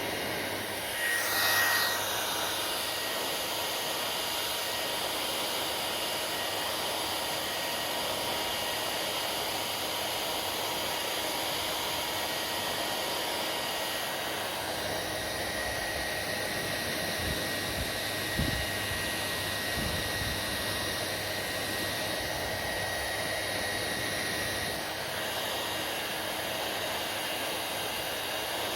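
Hair dryer running steadily: the even rush of blown air over the whine of its motor, with a brief louder gust about a second in.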